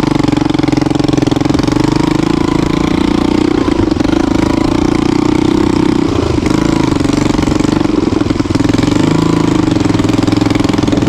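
Hartford VR 150 motorcycle's single-cylinder engine running steadily at low speed, its pitch rising and dipping a little.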